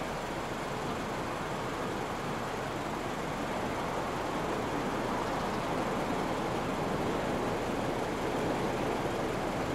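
EF200 electric locomotive approaching at low speed: a steady rushing running noise that grows slowly louder as it nears.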